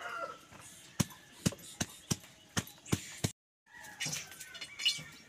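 A hand-held grinding stone knocking down onto garlic cloves on a woven bamboo mat, crushing them: about seven sharp knocks, two to three a second, that stop a little over three seconds in.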